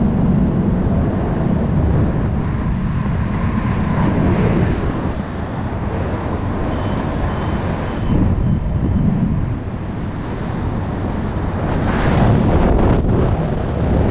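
Freefall wind rushing and buffeting over a helmet-mounted camera's microphone during a skydive, loud and steady. About seven seconds in, a few faint short beeps sound through it, and near the end the rush turns brighter and choppier.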